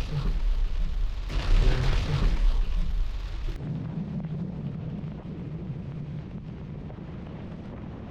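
Heavy rain with a deep rumble of thunder. About three and a half seconds in it drops suddenly to quieter, steady rain noise with a low hum underneath.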